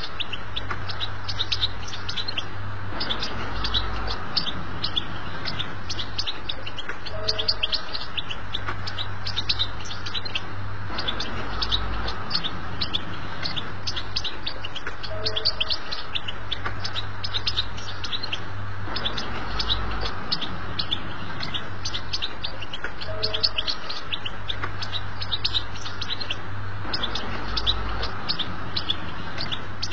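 European goldfinch singing a 'batbata' song: a dense run of rapid, high twittering chirps with no pause, over a low steady hum. The same passage comes round again about every eight seconds, as in a looped tutoring recording for teaching young goldfinches their song.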